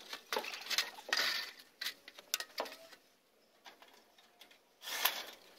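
Knocks, rattles and short scrapes of a sheet-metal panel being handled and pressed into place on a wooden frame. They come in a busy cluster over the first few seconds, then one louder scrape about five seconds in.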